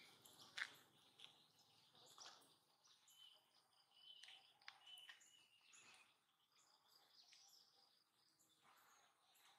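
Near silence: faint outdoor ambience with a few short, high chirps scattered through it and a few soft clicks, the sharpest about half a second in.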